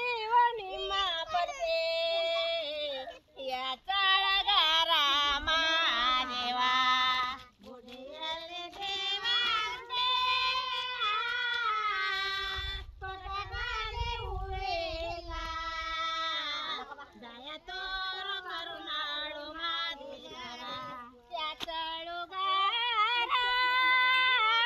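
Women's voices singing a rural folk song unaccompanied, a high melody in long phrases with brief pauses for breath, the kind of song sung while transplanting rice seedlings by hand.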